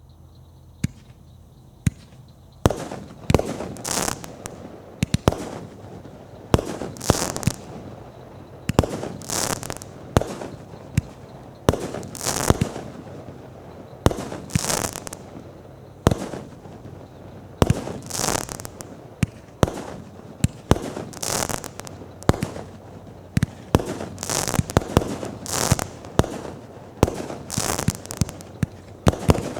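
A GoodFellas 30-shot consumer firework cake firing in sequence: a sharp launch thump for each shot, followed by a crackling, hissing break, about one shot every second or two. The shots begin about two and a half seconds in.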